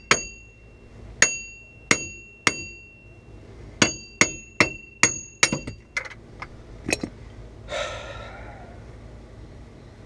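Hammer blows ringing on steel: three spaced strikes, then a quicker run of five, then a few lighter hits. They are knocking loose a front wheel hub and bearing assembly rusted fast in its mount. A short scraping rasp follows near the end.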